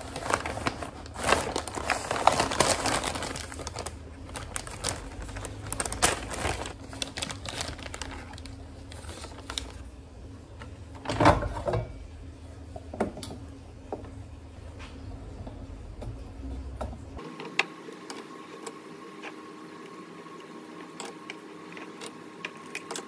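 Plastic packaging of a frozen corndog bag crinkling as it is handled, then a loud knock about eleven seconds in as the plastic air fryer basket is pulled out and handled. A faint steady hum runs through the last few seconds.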